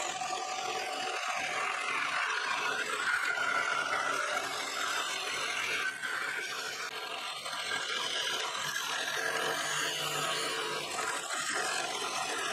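Scroll saw running and cutting a long curved line through a wooden board: a steady machine sound with the blade working through the wood.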